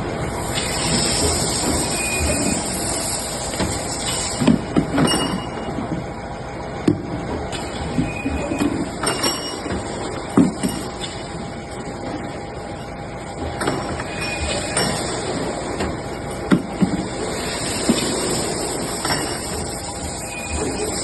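CNC auto-feed double-end pipe chamfering machine running, with a steady mechanical noise and a high hiss in stretches. Sharp metal clanks come every one to three seconds as short pipes are fed through.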